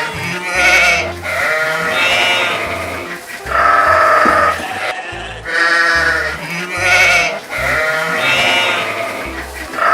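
Bleating farm animal calling repeatedly, about seven wavering bleats of half a second to a second each, over a low bass beat of background music.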